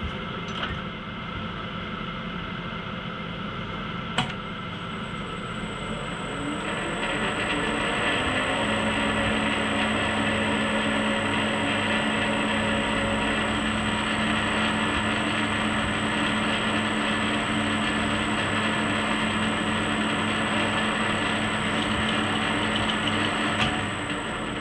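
Warco 280V metal lathe switched on with a click about four seconds in, its motor winding up to speed with a rising whine, then running steadily with a high whine over the spinning four-jaw chuck. Near the end it is switched off and starts to run down.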